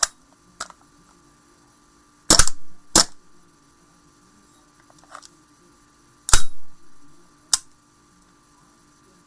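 Custom gas blowback airsoft OA-93 pistol, built on a WE M4, firing single shots, each a sharp crack of the gas blowback action. Four louder shots come in two pairs, one pair about two seconds in and one about six seconds in, with lighter clicks near the start.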